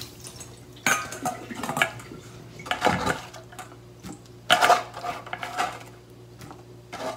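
Stainless steel bowls and a mesh strainer clattering and clinking, with chopsticks tapping and scraping on the steel, in several short bursts as drained burdock strips are moved into a bowl.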